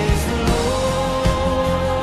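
Recorded worship song: a voice holds a long note over a band, with a drum beat falling about every three-quarters of a second.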